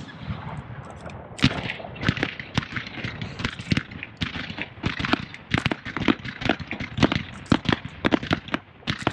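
Aerial fireworks display: a rapid series of shell bursts and bangs, several a second, growing dense from about a second and a half in.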